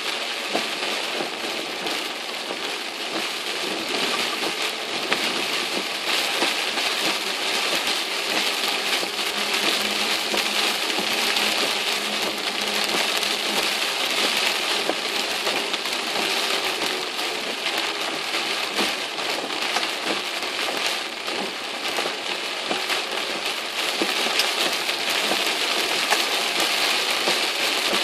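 Heavy typhoon rain falling on a moving car's roof and windshield, heard from inside the cabin: a dense, steady patter of drops that swells a little now and then.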